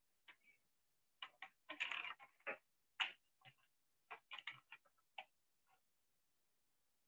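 A run of faint, irregular clicks and taps, some coming in quick clusters, that stops a little before the end.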